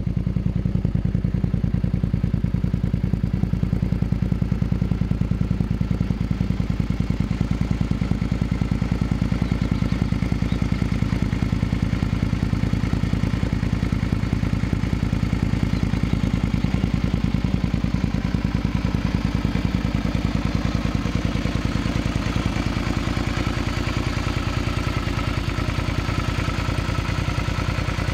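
Suzuki V-Strom's V-twin idling steadily through a Sharon aftermarket exhaust silencer, with an even pulsing beat.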